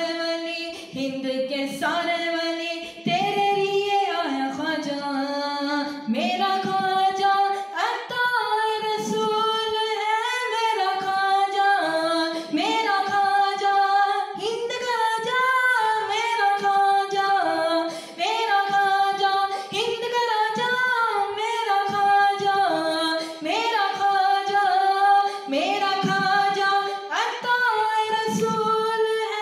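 A young man singing an Urdu manqabat (Sufi devotional praise song) unaccompanied into a microphone, holding long notes and gliding between them in ornamented runs, with short pauses for breath.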